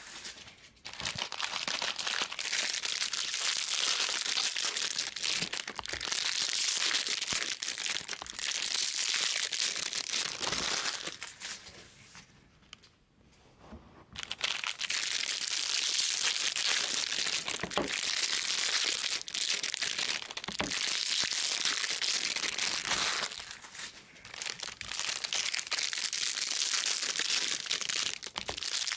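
Foil wrappers of Bowman baseball card packs being torn open and crinkled by hand, a dense crackling rustle with a brief lull about halfway through.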